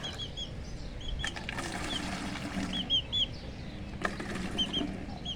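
Small birds chirping in short, high, hooked notes that repeat in twos and threes, with a few sharp knocks as the water vessels are handled.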